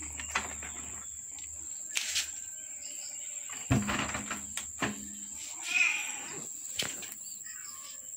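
A cat meows briefly about six seconds in, with a fainter call soon after, among scattered light knocks and clicks.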